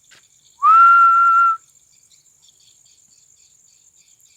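A person whistling one note that slides up and then holds for about a second, about half a second in, over steady chirring of crickets.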